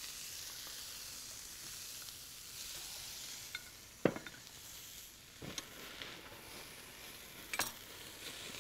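Whole speckled trout, coated in olive oil, sizzling on a hot grill grate with a steady hiss, broken by a few sharp pops and crackles.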